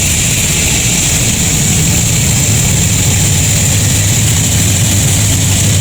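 Sawmill machinery running steadily: a continuous low motor hum with a high, even whine above it.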